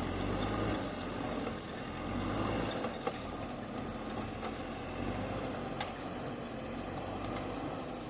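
JCB 3DX backhoe loader's diesel engine running steadily at working speed, with a couple of brief sharp knocks, about three seconds in and again near six seconds.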